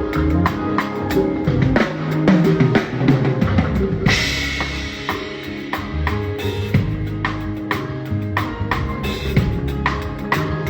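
Live band playing an instrumental groove, the drum kit to the fore with kick and snare hits over sustained bass tones; a cymbal crash about four seconds in.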